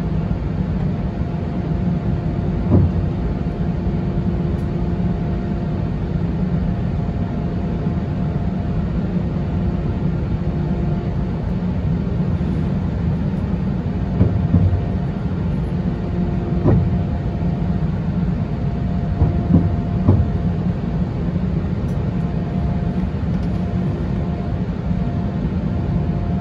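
Airbus A320-212 taxiing, heard from inside the cabin: the CFM56 engines run at taxi power as a steady rumble with a faint hum, and the wheels thump over taxiway joints about five times.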